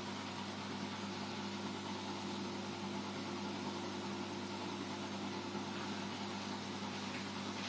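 Steady electrical hum with a constant hiss from reef aquarium equipment such as pumps, running unchanged throughout.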